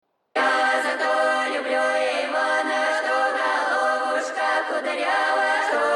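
Music: a choir-like vocal intro of held sung notes without words, starting a moment in.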